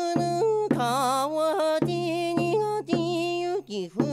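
Okinawan shima-uta folk song: a singer holds long, wavering notes that step up and down in pitch, over a steady instrumental accompaniment.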